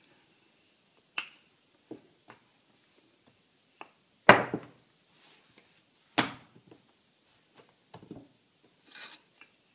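Wooden rolling pin knocking and bumping against a stone countertop while pastry dough is rolled out: scattered sharp knocks, the two loudest a little past the middle.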